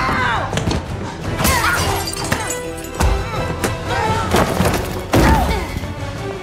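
Movie fight soundtrack: a music score under hard punch and body-slam impacts from two women fighting hand to hand, with short effort grunts. The heaviest hit lands about five seconds in.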